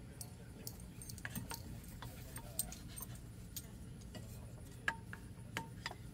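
Irregular light clicks and taps of parts being handled while a cold air intake is fitted in a car's engine bay, with a couple of sharper clicks about two and a half and five seconds in.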